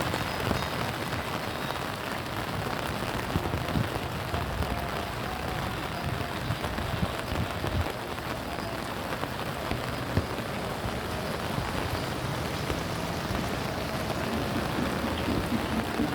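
Steady rain falling and pattering on surfaces, a continuous hiss with many small irregular drop ticks.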